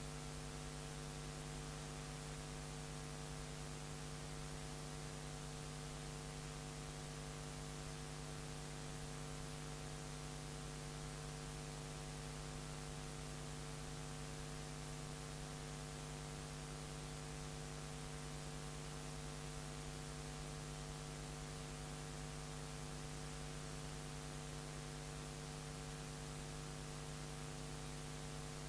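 Steady electrical mains hum with a buzzy edge and a faint hiss, unchanging throughout.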